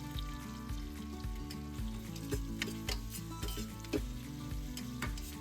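Sliced onion frying in hot mustard oil in a pressure cooker, a steady sizzle with scattered clicks of the spoon stirring against the pot.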